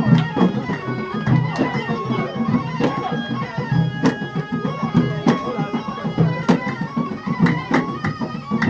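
Traditional wedding music: a loud reed wind instrument, bagpipe-like, playing a held melody over frequent drum beats.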